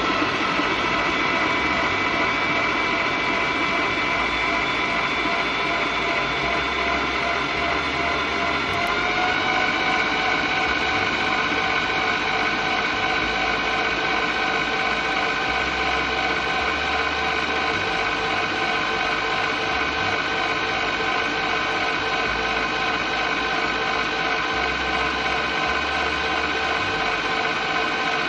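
Mini Angel 5-quart stand mixer's motor running steadily with a whine, stepping up to a higher speed about nine seconds in.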